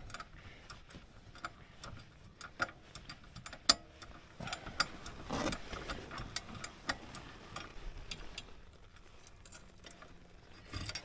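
Irregular light metallic clicks and ticks of tools and parts as a weight is changed on a snowmobile's open-face primary drive clutch, with one sharper click nearly four seconds in.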